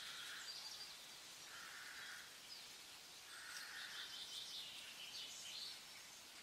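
Faint outdoor ambience with birds chirping: a short call repeats about every second and a half, with higher chirps over it.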